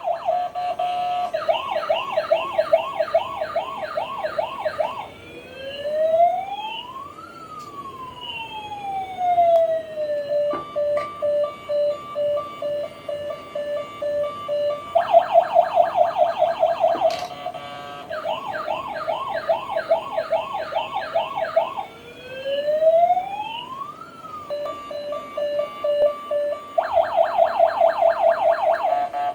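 Electronic siren of a toy police motorbike cycling through its tones: a fast warbling yelp, a slow wail that rises and falls once, and a steady pulsing beep. The sequence comes round twice.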